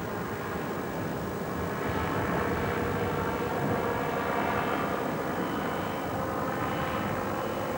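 Microlight's small two-stroke engine droning steadily in flight, with a buzzing, many-toned note over rushing air noise.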